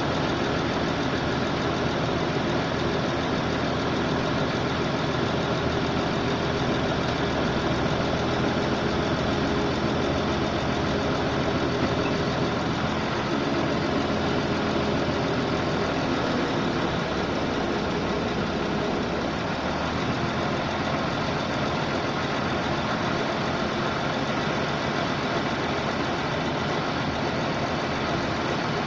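Diesel engine of a 655 CFM portable air compressor running steadily, easing slightly lower about seventeen seconds in.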